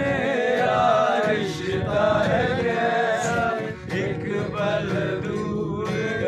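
A group of men singing a song together in chorus, accompanied by a strummed acoustic guitar.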